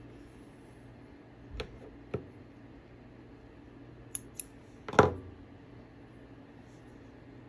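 Small steel thread snippers cutting sewing thread: two quick sharp snips, then a louder single knock about half a second later, with a couple of softer clicks earlier on.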